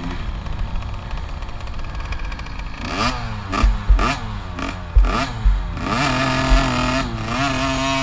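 Small 50cc two-stroke youth motocross bike engine, heard close up from the bike, running low as it rolls slowly, then blipped several times in quick rising-and-falling revs about three seconds in, with a few dull thumps. It settles back to a steadier running note near the end.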